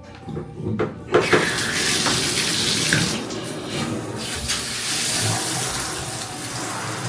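Bathtub tap turned on with a couple of knocks, then water running hard into the tub as a steady hiss from about a second in.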